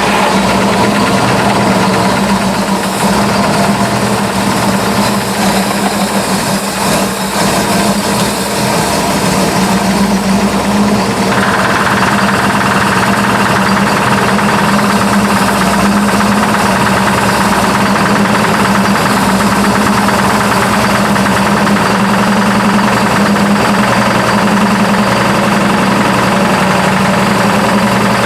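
1955 Buick's 322 Nailhead V8 running steadily just after starting, with a knock that has just developed, which the owner cannot place as lifter knock or rod knock.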